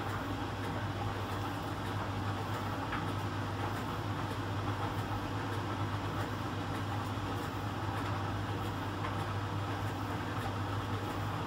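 Miele Professional PT 7186 XL commercial tumble dryer running in its drying phase: the drum and heater blower motors give a steady low hum under the even rushing of rags tumbling in the drum.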